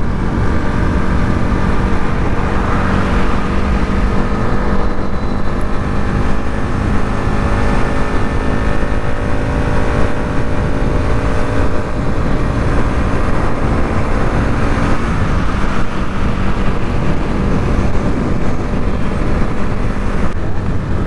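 Motorcycle engine running steadily at road speed, with wind rushing over the microphone.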